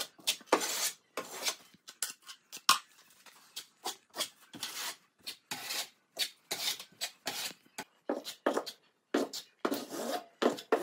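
Metal putty knife scraping finishing putty along drywall joints: repeated short scraping strokes, about two a second, with brief gaps between them.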